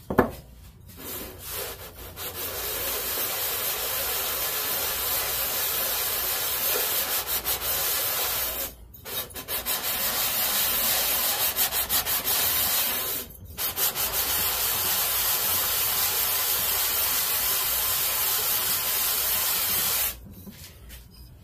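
A Briggs & Stratton 5 hp cylinder head being scrubbed back and forth on 220-grit sandpaper laid on a flat table, a steady rasping rub that rises and falls with each stroke and stops briefly twice. The head is being lapped flat because its gasket face was not flat.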